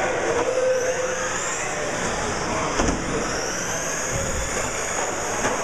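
Radio-controlled stadium trucks racing on an indoor track, their motors making high whines that rise and fall as they speed up and slow down. There is a sharp knock about three seconds in and a lighter one near the end.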